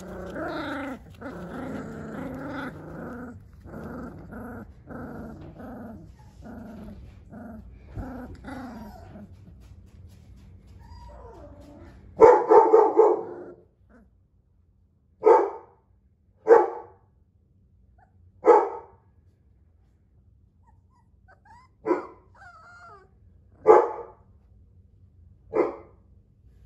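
Three-week-old Dogo Argentino puppies growling at each other in play, wavering and broken into short bursts, for about the first ten seconds. Then comes a louder yelp and a string of about six short, sharp puppy barks spaced a second or two apart.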